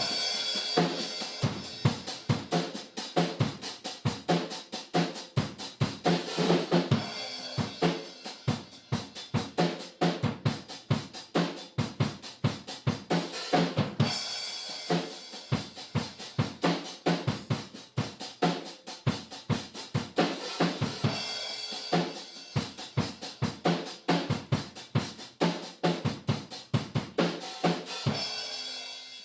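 Background music: a drum-heavy track with a fast, steady beat that cuts off abruptly at the end.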